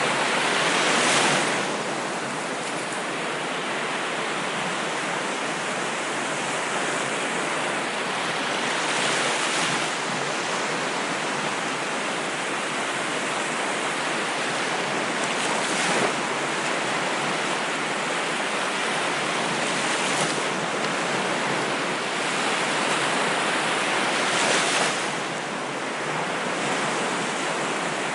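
Ocean surf: a steady wash of waves, with a louder wave breaking every several seconds, about five times.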